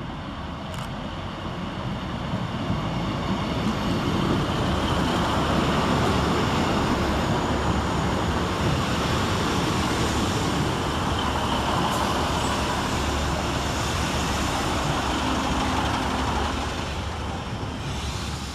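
A pair of Class 150 Sprinter diesel multiple units with Cummins engines, running through the station, growing louder over the first few seconds, then steady, and dying away near the end.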